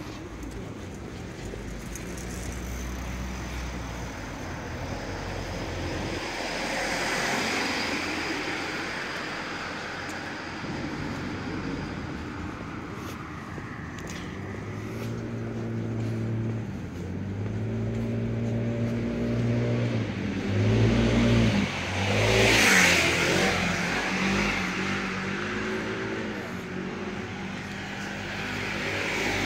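Street traffic: vehicles driving past on the road beside the pavement. Midway an engine revs up in steps, as if shifting through gears, and a vehicle passing close gives the loudest swell about two-thirds of the way through.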